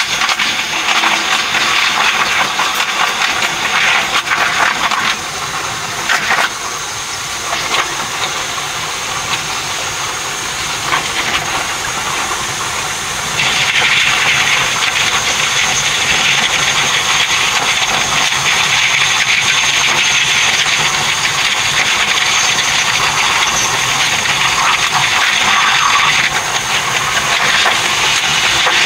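Running noise heard inside a train cab at speed, sped up by the four-times timelapse: a steady rushing hiss of wheels, rails and air with a thin high whine over it. It eases off for a few seconds, then grows louder again about halfway through.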